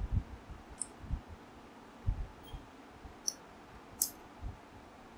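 Scattered small metal clicks and dull knocks from hands and tools working the throttle cable free from a Yamaha FZ FI's throttle body. The sharpest click comes about four seconds in.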